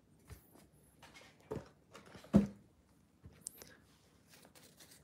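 A few soft knocks, clicks and rustles of hands handling cards and items on a tabletop, the loudest knock about two and a half seconds in.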